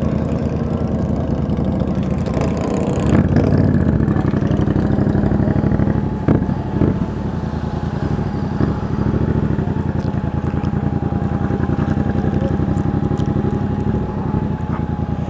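Yamaha MT-07's parallel-twin engine running at low speed, heard from the rider's seat, a little louder for a few seconds about three seconds in.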